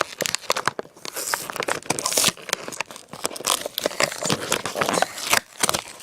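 Toy box packaging being handled and torn open: irregular crinkling, crackling and tearing.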